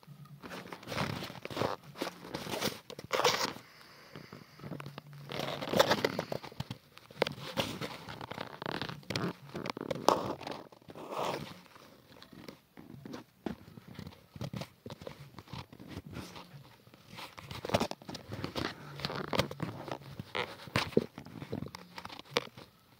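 Handling noise: irregular rustling, crackling and scraping as the phone's microphone rubs against whatever is covering it.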